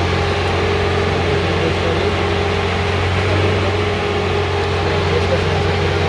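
Engine idling steadily: a low, even hum with a constant higher tone above it.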